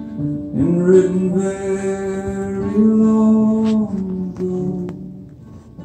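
Live acoustic band performance: voices singing long held notes over strummed acoustic guitar.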